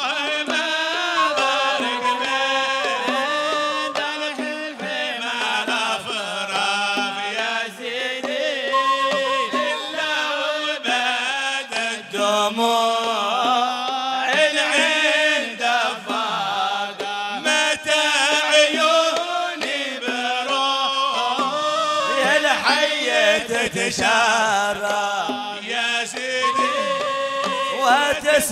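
Male voices singing a Hadhrami religious qasida (inshad) in a chanting style, with hand-drum accompaniment.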